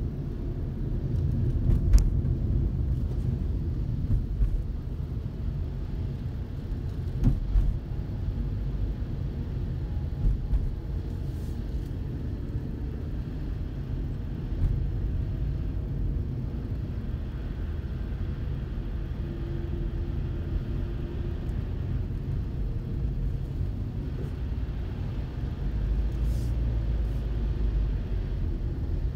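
Car driving along a road: a steady low rumble of engine and tyres, with a few brief knocks, the loudest about two seconds in and another about seven seconds in.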